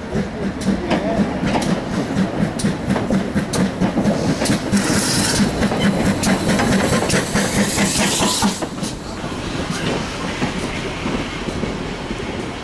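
GWR small prairie 2-6-2T steam locomotive 5542 pulling away, its exhaust chuffing at a slow, steady beat with short sharp clicks throughout. From about five seconds in, a loud hiss of steam swells as the engine passes close and eases off after about eight and a half seconds. The chuffs then carry on more softly.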